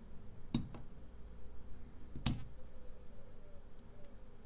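Two sharp little clicks, a little under two seconds apart, from fingers handling the metal Pentax 67 camera body.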